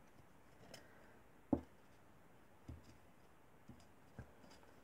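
Faint handling sounds from crocheting cotton cord through the holes of a plywood basket base: a few soft, scattered knocks and taps, the loudest about a second and a half in.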